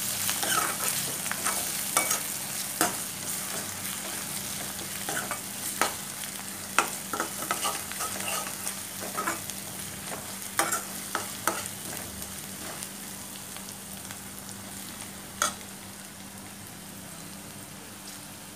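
Onions, green chillies and curry leaves sizzling in oil in an aluminium kadai while a steel spoon stirs in ginger-garlic paste and turmeric, the spoon clinking and scraping against the pan. The clinks come often at first and thin out later, and the sizzle eases slightly toward the end.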